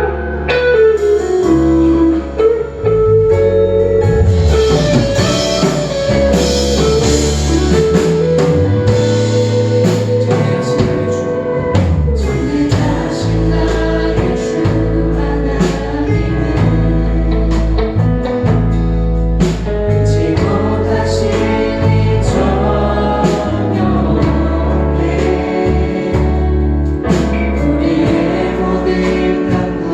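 Church praise team singing a worship song together, with live band accompaniment of bass and drums.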